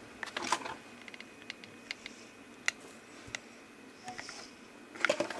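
Scattered light clicks and taps with soft rustling: hands handling cardstock and glue while gluing the card's edges, with a small cluster of clicks about half a second in and a busier one near the end.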